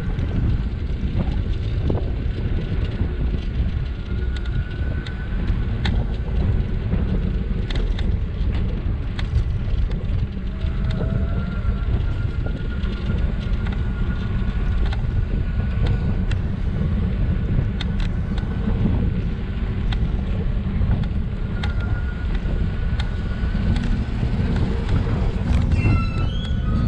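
Wind buffeting the microphone over the steady rumble of a scooter rolling on asphalt, with a faint high whine that comes and goes.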